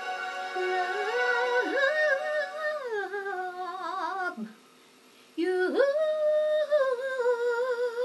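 A woman's solo voice singing a slow, drawn-out melody with vibrato, without clear words. It breaks off for about a second midway, then swoops up into a long held note.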